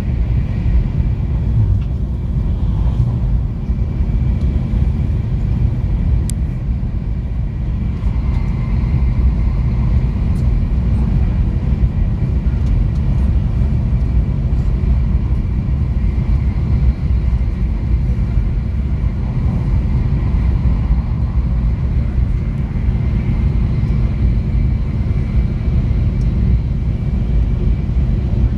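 Steady, even low rumbling noise with a faint high steady tone above it, unchanging throughout.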